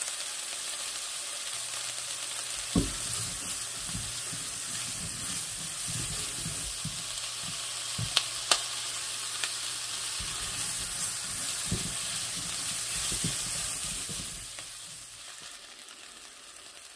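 Chopped onion sizzling steadily in hot oil in a skillet as it sautés toward translucent, with a few sharp clicks. The sizzle fades near the end.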